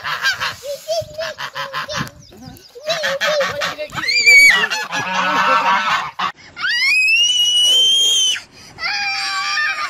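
White domestic geese honking repeatedly in rapid, harsh calls. Near the end, a child's long high-pitched cry rises and holds.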